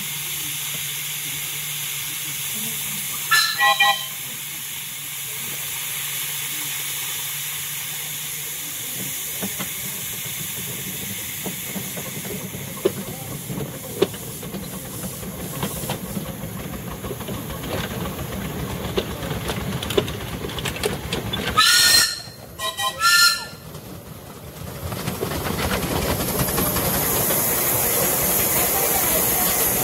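Miniature steam locomotive running with a steady hiss of steam, heard from the carriage behind it. Its whistle sounds once briefly a few seconds in and twice more about two-thirds of the way through. Near the end the running sound grows louder and echoes as the train enters a tunnel.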